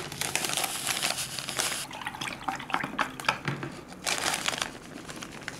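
Crinkling of a foil-lined packet of granulated dashi as it is shaken out, and chopsticks stirring thin takoyaki batter in a mixing bowl, a rapid run of clicks and liquid sloshing that eases off near the end.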